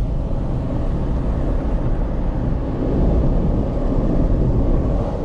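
Road noise of a Jeep Wrangler JL Moab on BF Goodrich Mud-Terrain tires cruising at about 40 mph with the windows down: a steady low rumble of tires and wind that gets a little louder about three seconds in.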